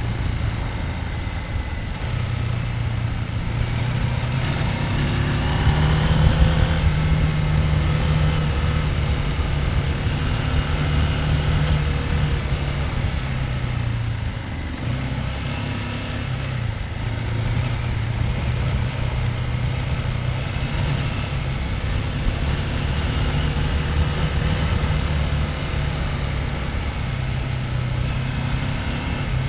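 Husqvarna Norden 901's 889 cc parallel-twin engine running at low to moderate revs off-road, its note rising and falling with the throttle and stepping with gear changes. It is loudest about six seconds in.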